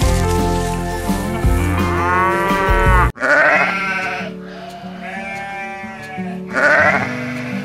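Background music with a heavy bass beat that drops out about three seconds in. Over the lighter music that follows, sheep bleat about three times.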